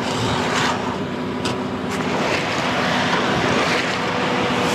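Concrete mixer truck running steadily while concrete is being placed, with two short clicks about a second and a half and two seconds in.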